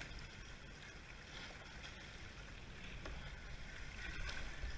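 Sea water sloshing and washing around a stand-up paddleboard beside a surfacing whale: a steady wash of water with a few light splashes.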